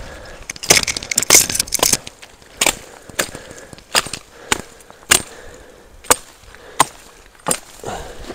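Repeated chopping blows from a blade into a sapling or brush, a dozen or so sharp strikes, bunched together at first and then coming about once a second.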